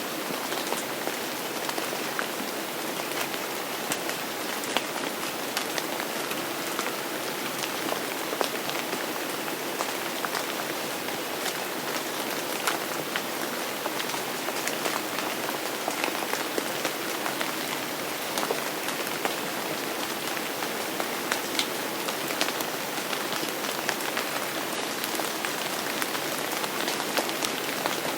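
Steady rain falling, with many separate drops ticking sharply on a surface close by.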